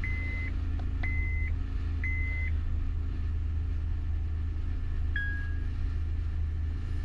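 2010 Honda Odyssey's V6 engine idling just after start-up, a steady low hum. A dashboard chime beeps about once a second for the first few seconds, and a single lower beep sounds about five seconds in.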